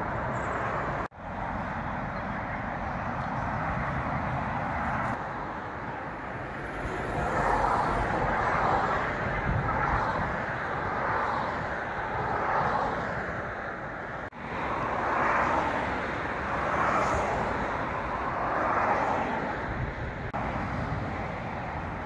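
Steady traffic noise from cars and vans passing on a busy dual carriageway, swelling and easing as vehicles go by. The sound breaks off abruptly twice, about a second in and again about two-thirds of the way through.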